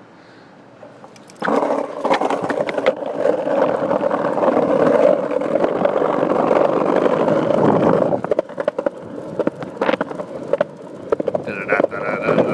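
Skateboard wheels rolling over brick paving and concrete sidewalk, starting suddenly about a second and a half in as the board is pulled off by the dog. The rolling is steady at first, turns patchy after about eight seconds with a scattering of sharp clacks, and a brief high whine comes in near the end.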